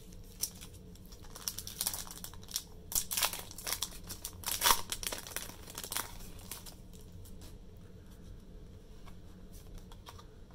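A Pokémon trading-card booster pack's foil wrapper being torn open and crinkled: a run of crackling from about a second and a half in to about six seconds, loudest near the middle, then only scattered faint clicks as the cards are handled.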